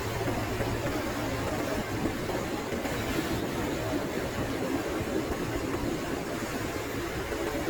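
Steady vehicle engine and road noise, an even rumble with no horn sounding.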